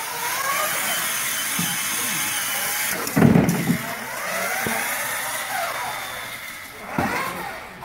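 Electric drive motors and gearboxes of a competition robot whining, the pitch rising and falling over and over as it speeds up and slows down. There is a short heavy low thump about three seconds in, and a lighter one near the end.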